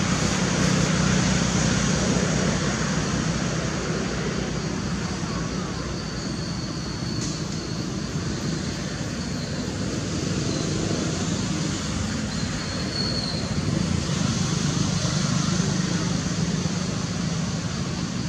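A steady low rumble with a continuous hiss over it.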